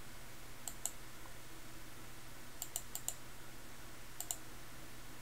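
Computer mouse clicking a few times, each click a quick press and release, about a second in, twice near the middle and once near the end, over faint room hiss.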